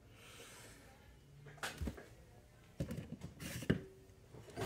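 Hands handling a hobby-grade RC buggy and tools on a workbench mat: a soft rustle, then a few scattered light knocks and clicks of the plastic and metal chassis being picked up and set down. The loudest knock comes near the end.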